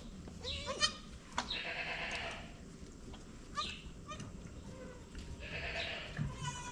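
Goats bleating in a few short calls, with two soft stretches of hissy rustling in between.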